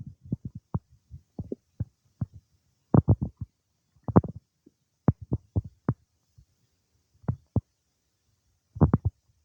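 Human stomach and intestines gurgling during digestion: irregular short pops and squelchy gurgles, some in quick clusters, with short quiet gaps between them.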